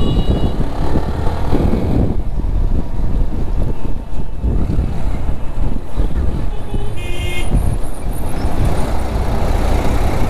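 Sport motorcycle riding along a road: a steady low rumble of engine, road and wind noise. A vehicle horn toots briefly right at the start and again, louder, about seven seconds in.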